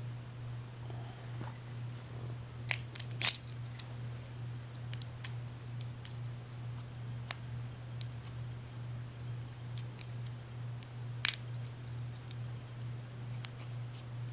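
A few small, sharp metallic clicks and taps as a deadbolt lock cylinder and small tools are handled, three close together about three seconds in and one more near the eleven-second mark, over a steady low hum.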